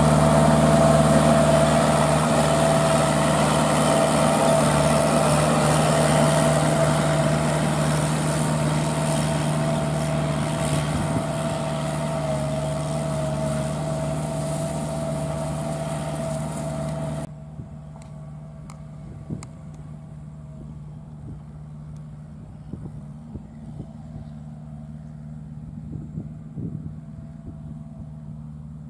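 Kubota L5018VN tractor's four-cylinder 50 hp diesel engine running steadily while working a rear rotary tiller through dry rice stubble. It slowly fades, then about 17 seconds in drops suddenly to a fainter, more distant drone with a few small ticks.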